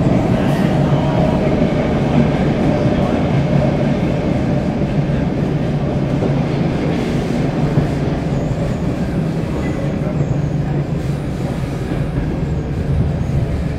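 Stockholm Metro C6 car running on the rails, heard from inside the car: a steady rumble of wheels and running gear with a low hum. A faint whine fades out in the first few seconds.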